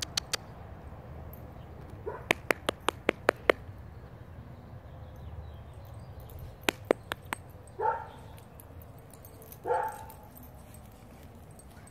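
A dog gives two short barks, a couple of seconds apart in the second half. Before them come quick runs of sharp clicks, several a second.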